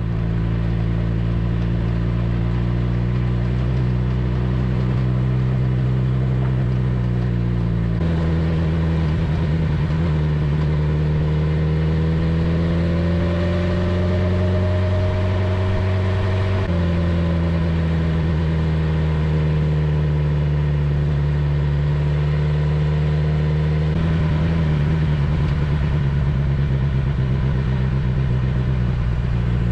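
Motorcycle engine running as the bike rides along. Its pitch steps up and down several times and rises slowly before dropping a little past halfway.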